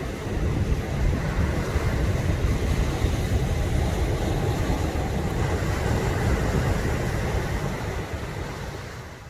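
Steady rushing, wind-like noise with a heavy low rumble, fading out near the end.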